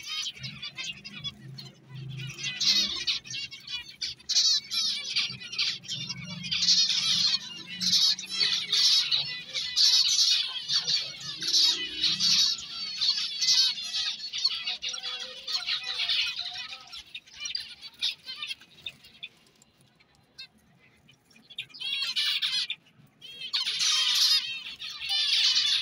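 A cage of zebra finches chirping and calling together, a dense chatter of short, overlapping calls. It dies down about three-quarters of the way through, then starts again in two bursts near the end.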